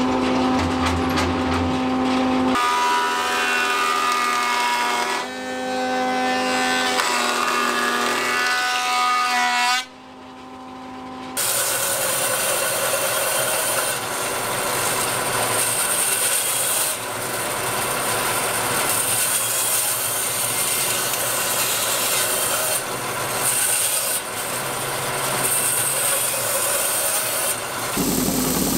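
Woodworking machinery. For the first ten seconds or so a thickness planer runs with steady tones that shift pitch in steps. Then a bandsaw cuts through blocks of solid wood with a loud, steady hiss for most of the rest.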